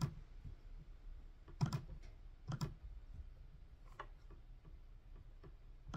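A few scattered clicks on a computer, about one every second or so.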